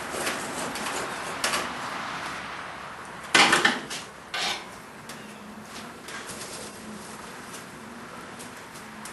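Metal clanking and scraping at a coal forge as tongs and a steel workpiece are worked against the forge pan and coals, with a loud clatter about three and a half seconds in and a shorter one just after.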